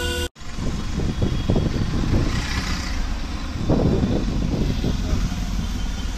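Engine and road noise of a moving vehicle heard from inside its cabin, a steady rumble with street traffic around it. It cuts out for a moment just after the start, and gets louder and rougher about four seconds in.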